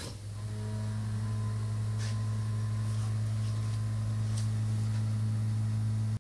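A steady low electrical hum, like a small motor or appliance running, with a few faint clicks over it.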